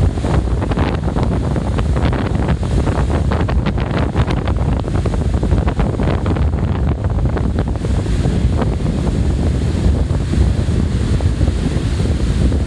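Stormy Baltic Sea surf breaking and washing up the beach in a steady wash of noise, with wind buffeting the microphone in a constant low rumble.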